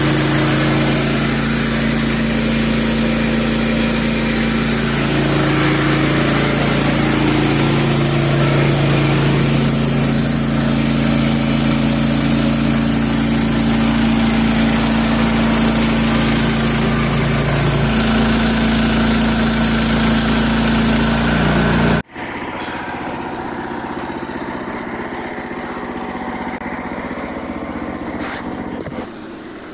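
Small gasoline engine of a portable band sawmill running steadily under load as the blade cuts through a white oak log. About two-thirds of the way through, the sound drops suddenly to a quieter engine-like running.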